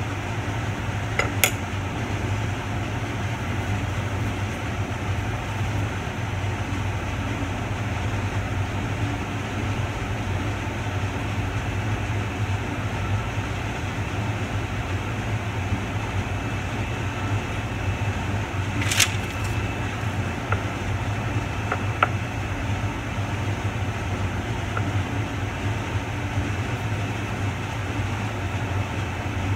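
Steady low hum of ventilation, with three sharp light clicks: one near the start and two in the second half.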